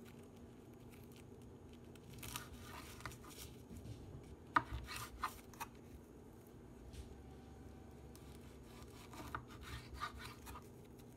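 Kitchen knife sawing through a nori-wrapped sushi roll on a wooden cutting board: faint rasping strokes with a few light knocks of the blade on the board, the sharpest about four and a half seconds in.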